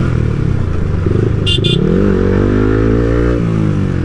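Yamaha motorcycle engine running through a Leo Vince Cobra replica exhaust with its outer dB killer removed, riding in traffic: the pitch drops in the first second, climbs, dips again and climbs once more as the throttle is worked, then holds steady near the end. Two short horn beeps about a second and a half in.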